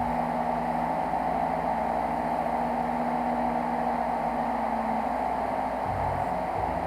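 Prusa i3 3D printer printing: its stepper motors hum at held pitches that jump to new ones every second or so as the moves change, over the steady whir of a cooling fan.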